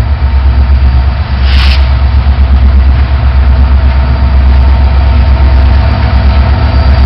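Diesel freight locomotive engine running with a steady low rumble, with a short hiss about a second and a half in.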